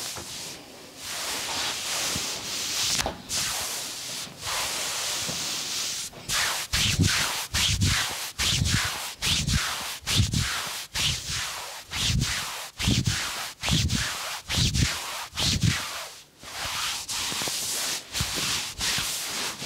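Hands rubbing over skin during a massage. Then a steady run of rhythmic thumping strikes, just under two a second, then rubbing again near the end.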